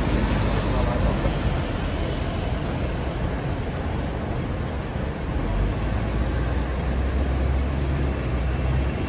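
Hong Kong double-decker electric tram running along its tracks: a steady rumble of wheels and motor, with a low hum growing stronger about halfway through.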